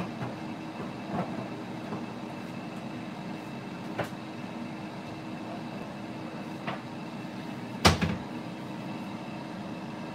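Light knocks and clatter of someone moving about a kitchen, with one louder knock about eight seconds in, over a steady hum.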